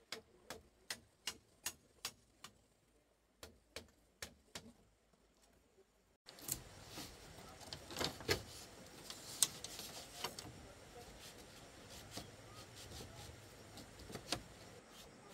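Sharp knocks in a steady rhythm, about three a second, for the first four to five seconds. Then, after a sudden change, there is a steady background hiss with scattered knocks and clicks.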